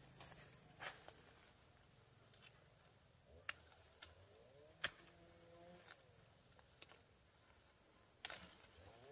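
Quiet, steady high-pitched insect trill that stops shortly before the end, broken by two sharp clicks near the middle and a faint wavering call in the distance.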